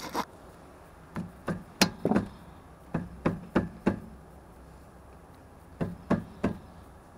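About a dozen sharp knocks in three short clusters, a few each time with pauses between, like hard objects being knocked or set down while working on the car's rear brake and hub.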